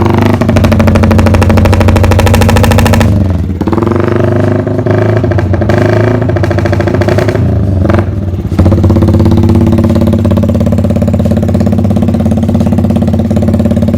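Modified Yamaha Vixion motorcycle engine making its 'helicopter sound' effect: a rapid, loud chopping for about three seconds. The engine then revs up and down a few times and settles to a steady run.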